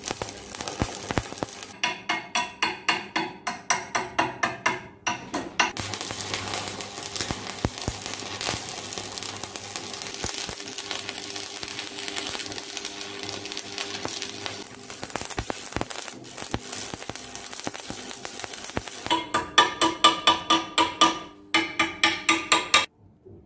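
Quick metallic hammer taps on a steel punch held against the cast-iron wrench part, about four a second with a ringing note, for a few seconds near the start and again near the end. In between is a long stretch of steady electric arc-welding crackle and sizzle.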